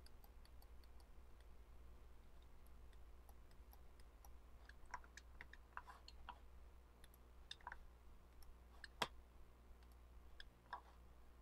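Faint, scattered clicks of a computer mouse being clicked and moved, the loudest about nine seconds in, over a low steady hum. A light, regular ticking runs through the first couple of seconds.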